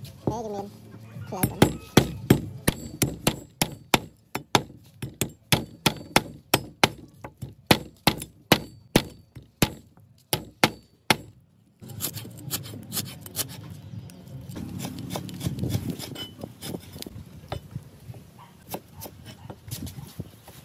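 Steady chopping with a knife, about two to three sharp strokes a second, which stops about twelve seconds in; quieter clinking and handling sounds follow.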